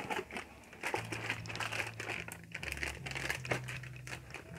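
Plastic packaging crinkling and rustling in short, irregular crackles as a laptop power adapter in its plastic bag is handled and drawn out of the box. A faint low hum sits underneath from about a second in.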